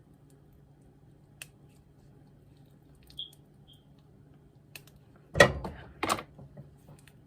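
Plastic casing being peeled off a sausage link: a few small clicks, then two loud crinkling rustles of plastic a little more than halfway through, over a faint steady hum.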